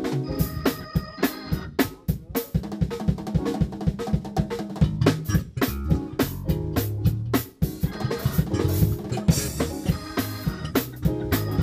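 Live gospel band playing: a busy drum kit with rapid snare and kick-drum hits, over electric bass notes and held keyboard chords.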